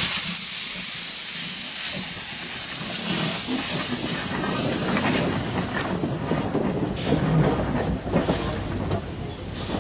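Steam hissing loudly from an LB&SCR A1X Terrier tank engine's open cylinder drain cocks as it moves slowly past; the hiss fades after about two seconds. Short knocks from the wheels and rods follow as it rolls by.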